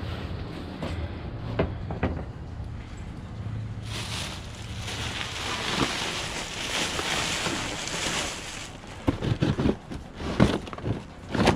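Black plastic garbage bag rustling and crinkling for several seconds as it is lifted and pushed aside in a dumpster, then a run of knocks and clatters as rubbish and cardboard are shifted near the end.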